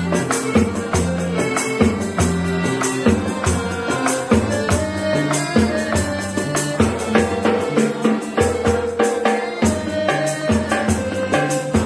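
Calypso band playing an upbeat tune: electric bass, accordion and small hand drums, with jingling percussion marking a steady, even beat.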